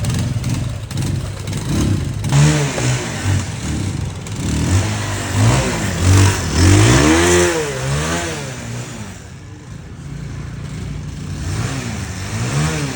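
Motorcycle engine running just after being brought back to life from about four months of standing, revved up and down several times with a rising and falling pitch, easing back to a steadier lower run, then revved again twice near the end.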